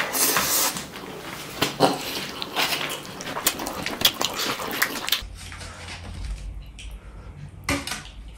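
Close-miked eating by hand: wet squelching of curried rice squeezed in the fingers and loud open-mouthed chewing and lip smacking. About five seconds in, the sound drops to a quieter room with a steady low hum and a few soft clicks of fingers in the food.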